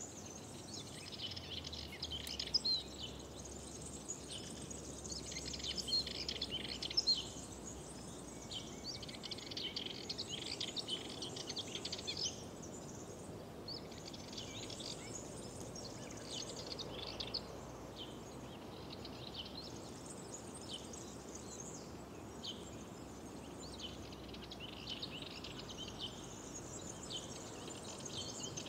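Songbirds singing in high, busy phrases a few seconds long that repeat with short gaps, over a steady low background hiss.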